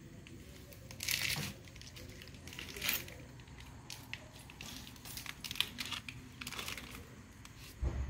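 Plastic parts bag crinkling and rustling in irregular short bursts as it is handled, the loudest about a second in and near three seconds, with a dull knock near the end.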